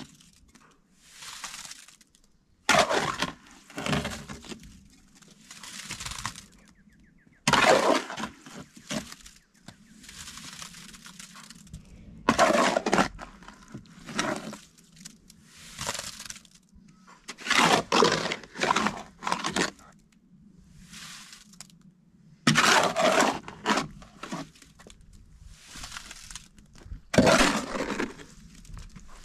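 Wet cement mix being scraped and churned in a wheelbarrow with a long-handled tool: repeated gritty scraping strokes, one every second or two.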